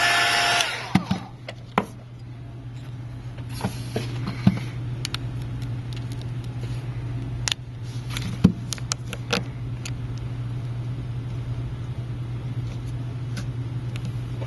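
Heat gun blowing, cut off under a second in. After that a steady low hum with scattered light clicks and taps of handling on the bench, one sharper tap about eight seconds in.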